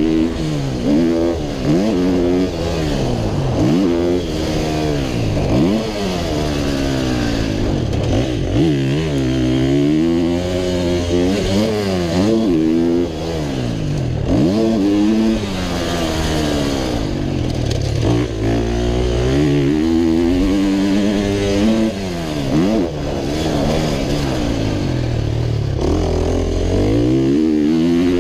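A 125cc two-stroke motocross bike's engine, heard from the rider's helmet, revving hard and falling off over and over as it is ridden around the track. Its pitch climbs and drops through the gears and on and off the throttle.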